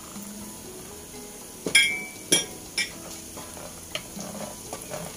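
Peanuts frying in hot oil in a pot, sizzling steadily, while a wooden spatula stirs them. About two seconds in, three sharp knocks come from the spatula striking the pot.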